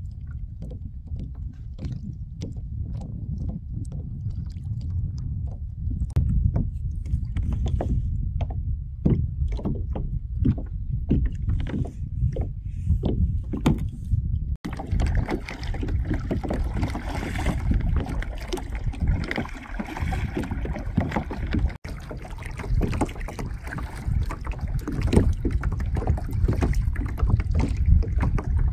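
Sit-on-top kayak being paddled across a lake: paddle strokes splashing and water slapping the hull, over a steady rumble of wind on the microphone. The sound breaks off abruptly twice, about halfway through and again a few seconds later.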